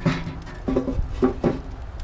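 Four short calls from an animal: one at the start, then three more in quick succession about a second in.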